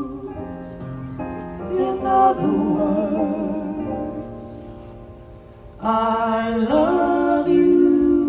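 Live vocal group of male singers holding sustained, vibrato-laden harmony chords over band backing; the music softens for a moment, then a new held chord swells in about six seconds in.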